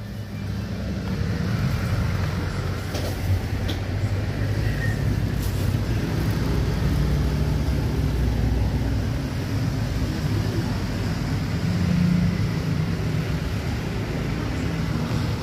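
Steady low rumble of road traffic, swelling briefly about twelve seconds in.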